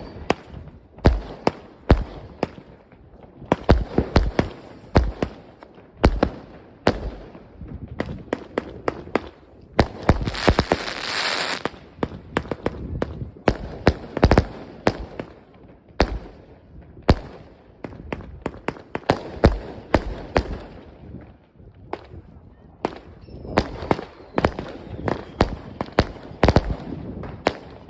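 Weco Black Ice firework going off: a rapid, irregular string of sharp bangs and cracks, with a loud hissing burst about ten seconds in.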